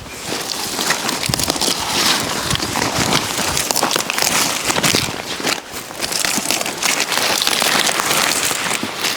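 Dense crackling and rustling of leafy vegetables being handled, their outer leaves snapped off by hand.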